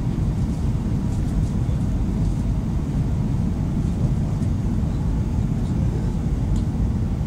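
Steady low rumble of airliner cabin noise heard from a window seat during the descent to land: engine and airflow noise.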